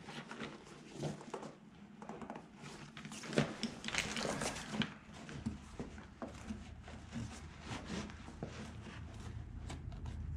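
Nylon webbing and fabric straps being worked by hand through the MOLLE loops of a soft motorcycle pannier: irregular rustling, scuffs and small knocks, busiest about four seconds in.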